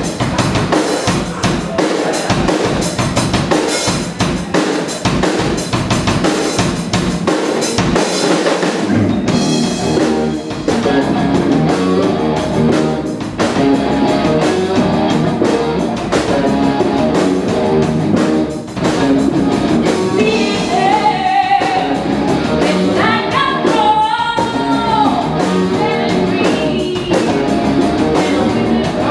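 Live rock band playing: a drum-heavy opening with pounding kit, the full band with electric guitar coming in about ten seconds in, and a woman singing over it in the last third.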